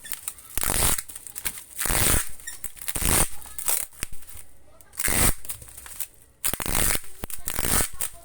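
Packing materials being handled and wrapped around a parcel by hand: a series of short rasping, tearing bursts, about one every second.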